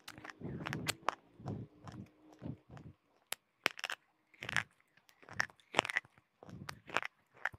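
Slate pencil being bitten and chewed right at a close microphone: sharp, dry crunches at an irregular pace, with a short lull about three seconds in.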